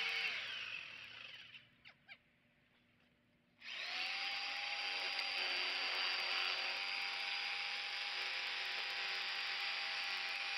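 Electric jigsaw cutting lengthwise through PVC pipe. The motor winds down and stops in the first second or so, two light clicks come in the pause, and it starts up again about three and a half seconds in and runs steadily.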